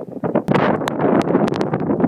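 Strong gusting wind buffeting the microphone, swelling into a loud rush about half a second in, with sharp crackles scattered through it.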